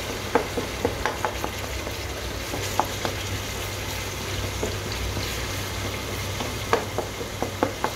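Tomato, ginger-garlic and oil masala being bhuna-fried in a metal pot, sizzling and bubbling as a spatula stirs it. Scattered pops and spatula clicks sound through the hiss, over a steady low hum.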